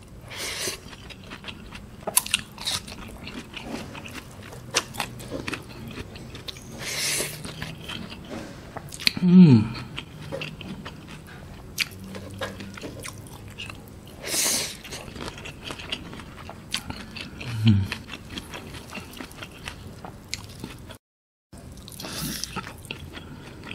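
Close-up mouth sounds of someone chewing and crunching handfuls of rice with raw vegetables, with many sharp crunches and wet clicks. Twice a short hum falls in pitch.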